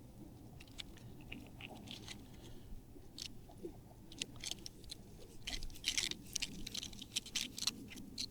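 Small parts being handled by hand: light, irregular clicks and crackles, growing busier over the last few seconds.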